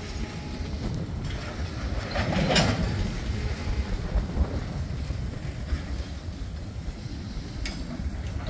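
Loaded Herzog ballast hopper cars rolling past on the rails: a steady low rumble of wheels with clickety-clack. About two and a half seconds in there is a louder burst of rattling, and a single sharp click near the end.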